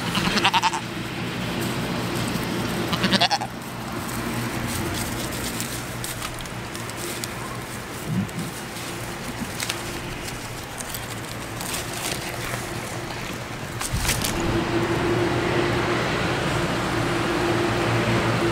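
A goat bleating twice, short quavering calls: once at the start and again about three seconds in.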